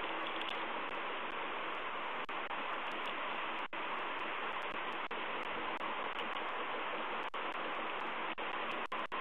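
Steady, even hiss of noise on a nest camera's audio, with a few brief dropouts: about a third of the way in, near three-quarters, and near the end.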